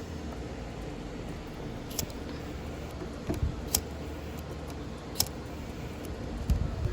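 Small handling noises while car wiring is taped up: three sharp clicks and a few soft knocks over a steady low background hum.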